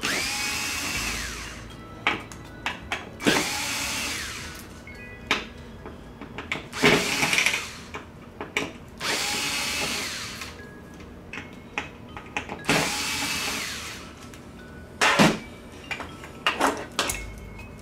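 Cordless electric screwdriver backing screws out of a TV stand's foot bracket. It runs in about five separate bursts of roughly a second each, and each run winds up in pitch and then holds. Between the runs come short clicks and knocks of screws and metal parts being handled.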